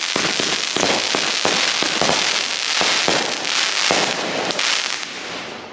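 Fireworks going off: a rapid, dense string of crackling pops and bangs that dies away near the end.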